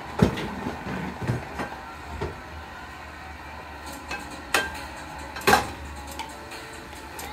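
A utensil knocking and scraping against a plastic pitcher as pancake batter is stirred: a string of sharp clicks and taps, the loudest just after the start and about five and a half seconds in.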